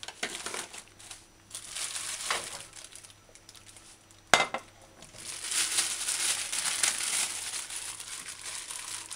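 A plastic bag of frozen chicken gizzards crinkling and rustling as it is handled, densest through the second half. A little over four seconds in there is one sharp clank as a stainless steel pot is set down on the stovetop.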